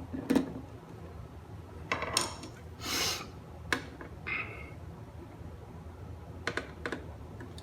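Handling noises from small metal and plastic parts of a Technics SL-3300 turntable being taken apart: a few sharp clicks and taps, a couple of short scrapes around two and three seconds in, a brief squeak just after four seconds, and two more clicks near the end.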